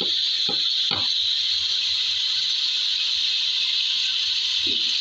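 A steady, even hiss from food cooking on the stove, with a few faint short knocks about half a second in, about a second in and near the end.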